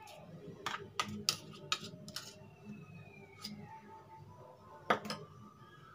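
Light clinks and taps of a small steel bowl as curd is tipped and knocked out of it into a plastic mixing bowl of flour: about seven separate clicks, the sharpest about five seconds in.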